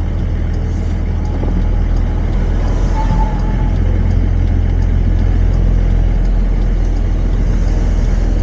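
Toyota Land Cruiser 70 (HZJ71V) driving slowly with the windows open, heard from inside the cab: a steady low rumble of the 1HZ straight-six diesel and road noise.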